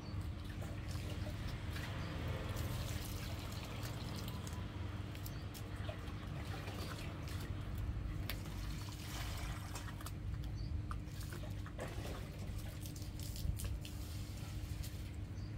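A puppy chewing and gnawing a pork bone: irregular clicks and crunches with a steady low hum underneath.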